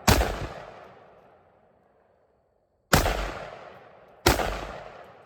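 Three gunshots, the first right at the start and the other two about three and four and a quarter seconds in, each followed by a long rolling echo that dies away over a second or two.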